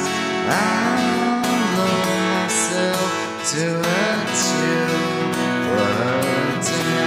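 Music: strummed acoustic guitar chords with a melody line that slides up and down between notes over them.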